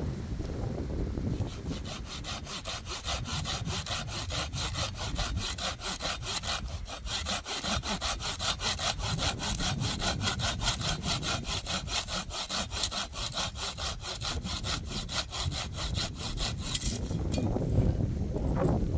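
Hand saw cutting through wood in quick, even strokes, about four a second, starting about a second in and stopping near the end.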